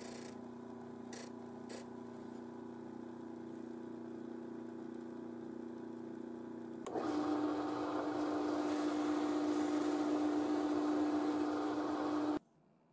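Disc sander's motor running with a steady hum while the corners of an MDF part are rounded on the disc. About seven seconds in it gives way to a louder benchtop drill press with a flat-bottom bit boring a shallow 13 mm hole in MDF, with more hiss from the cutting. It cuts off abruptly near the end.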